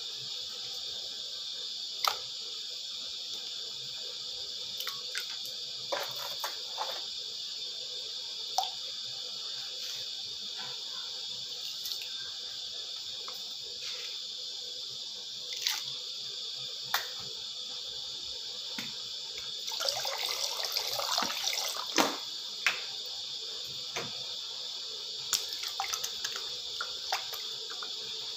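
Pot of water heating on the stove with a steady hiss, broken by a dozen or so sharp plinks and splashes as garlic cloves and peppercorns drop into the water. About twenty seconds in comes a longer stretch of splashing.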